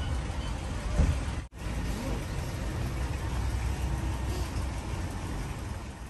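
Steady background ambience: a low rumble with an even hiss and faint voices, briefly cutting out about one and a half seconds in.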